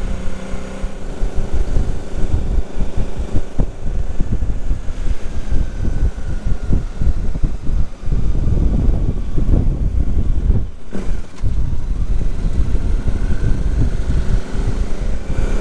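Motorcycle engine running under way on the road, with heavy wind buffeting on the microphone.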